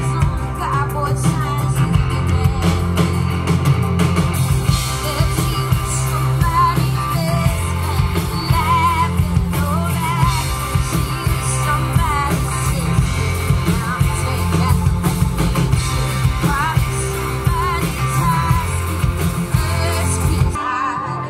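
Live band music with a woman singing over guitar and a heavy bass line. The bass drops out briefly near the end.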